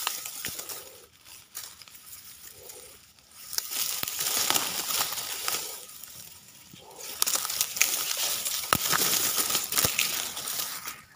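Dry reeds and grass rustling and crackling as someone pushes through them by hand, in three bursts with quieter gaps between, with a few sharp cracks among them.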